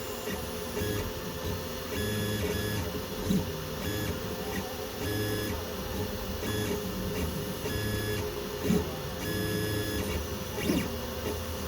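Sunlu 3D printer printing: its stepper motors give short whirring tones that jump in pitch as the head moves back and forth, over a steady hum.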